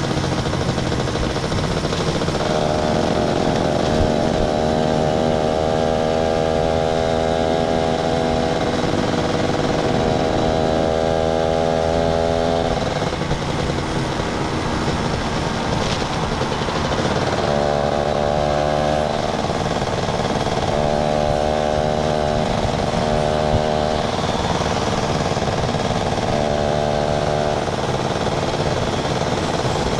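Small motorcycle engine running steadily while riding, under constant wind rush. The engine note drops away for a few seconds midway, then returns.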